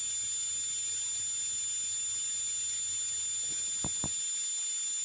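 A steady high-pitched whine over a constant hiss and low hum, with two soft taps about four seconds in.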